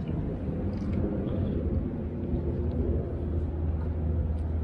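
A steady low rumble of outdoor background noise, with no distinct events standing out.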